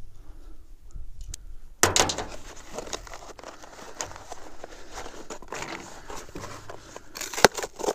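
Handling noises: rustling and crinkling with a few sharp knocks, the loudest about two seconds in and near the end, as a new gas shock is fetched and unpacked.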